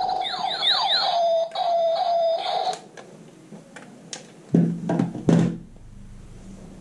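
Electronic laser-blaster sound effects from a battery-powered light-and-sound toy space pistol: a steady electronic tone, then a quick run of falling "pew" zaps that stops about three seconds in. A few clicks and two short louder sounds follow.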